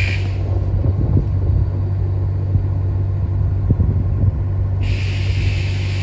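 Narrowboat's diesel engine running steadily under way, a low rumble, with a few thumps of wind on the microphone. A hiss of wind joins about five seconds in.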